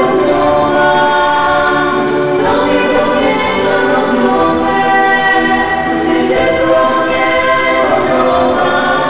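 Two women singing a slow song in close harmony with long held notes, accompanied by piano, performed live on stage.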